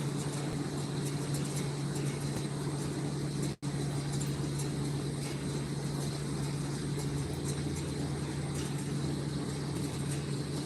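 Steady low mechanical hum that cuts out completely for an instant about three and a half seconds in.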